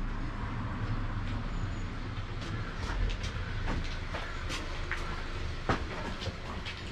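A steady low rumble with irregular sharp clicks and knocks scattered through it, one louder knock near the end.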